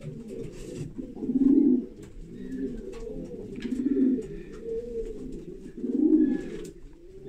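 Racing pigeons cooing in their loft, several birds overlapping in a continuous low warbling, with louder coos swelling about every two seconds.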